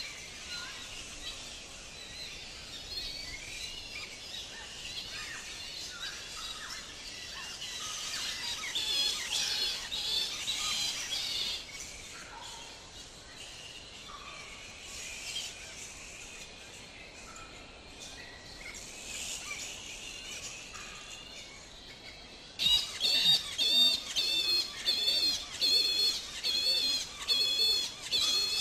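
Birds chirping and calling over a light background hiss. Near the end a louder call with a wavering pitch suddenly takes over and repeats about once or twice a second.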